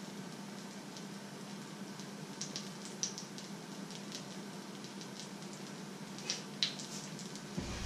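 Fish fingers and egg frying in a pan, the fat sizzling with scattered small crackles and pops, a few sharper pops about three seconds in and near the end, over a steady low hum.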